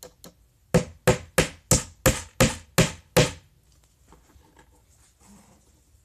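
Hammer driving small nails into a wooden beehive frame: two light taps, then eight sharp strikes at about three a second, then it stops a little past halfway.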